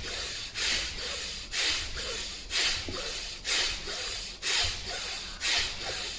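Rhythmic pranayama breathing through the nose: a short, forceful rush of breath about once a second, with softer breath noise between.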